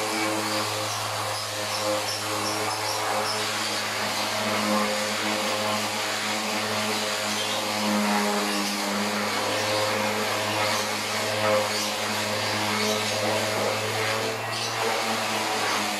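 Small handheld NRT electric sander running steadily with its sandpaper pressed on a wooden board: a constant motor hum with the even hiss of sanding over it.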